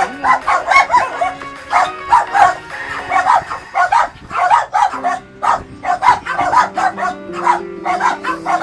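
Music made of a fast run of short, high, yapping calls, about three or four a second, with sustained lower notes coming in about halfway through.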